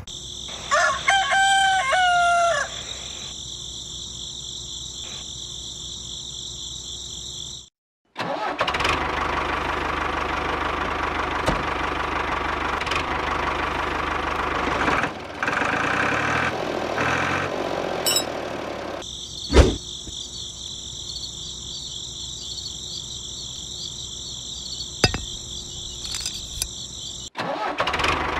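A rooster crows once, about a second in. Later, for about ten seconds, a toy tractor's small electric motor and gears whir steadily, followed by a sharp click.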